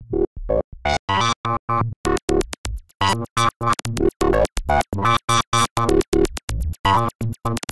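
Electronic background music: synthesizer chords chopped into short, rapid rhythmic pulses, with a fast run of sharp percussive ticks joining about two seconds in.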